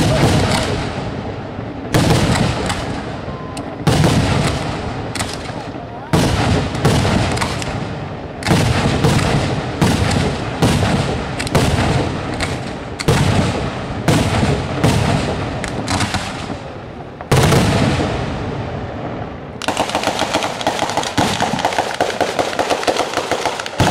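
Daytime fireworks: aerial shells bursting overhead, a loud bang every second or so, each followed by an echoing rumble. From about 20 seconds in, a rapid continuous rattle of many small firecracker bangs at ground level takes over.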